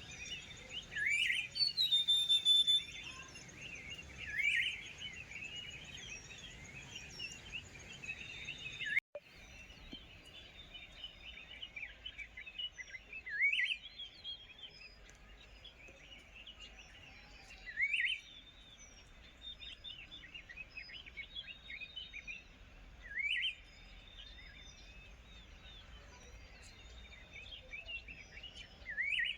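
Several birds chirping. One bird repeats a short, loud upward-sweeping call every few seconds, over a background of many small, faint chirps. A brief dropout comes about nine seconds in.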